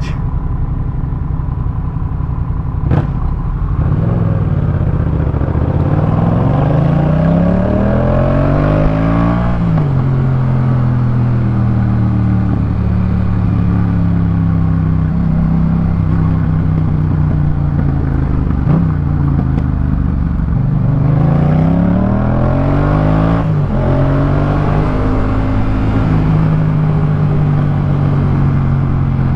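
Yamaha MT-07's 689 cc parallel-twin engine through a Jeskap K4 full aftermarket exhaust, heard from the rider's seat. It climbs in pitch under acceleration twice, each time dropping suddenly with an upshift, and runs at a steady pitch between and after.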